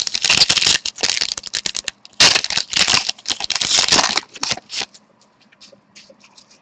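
Foil wrapper of an SPx hockey-card pack being torn open and crumpled by hand: two bouts of crisp crackling, the second starting about two seconds in, then a few faint clicks as the cards are handled.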